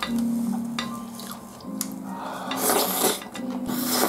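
A person slurping spaghetti in meat sauce off a fork: two loud slurps in the second half, after a few light clicks of the fork on the plate.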